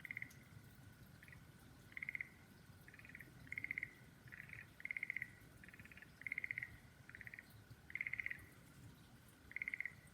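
A frog calling: about a dozen short croaks, each a quick rattle of pulses, repeated at irregular intervals of roughly half a second to a second and a half. A faint steady high tone sits underneath.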